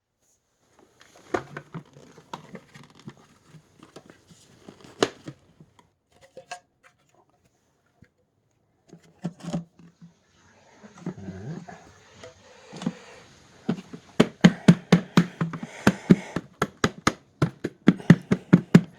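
Hands handling and poking at plastic vacuum cleaner parts while looking for trapped debris: scattered clicks and knocks, then a quick run of sharp clicks, about five a second, over the last few seconds.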